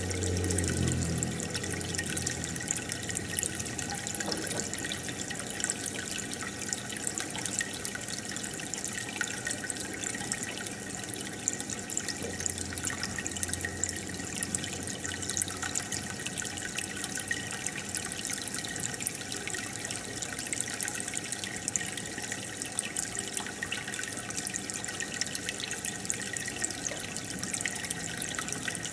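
Aquarium water bubbling and trickling steadily from the air bubbler or filter, with many small pops of bubbles breaking the surface.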